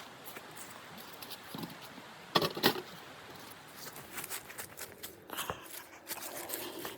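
Two sharp knocks in quick succession, followed by rustling and a run of small clicks and scrapes, like something being handled.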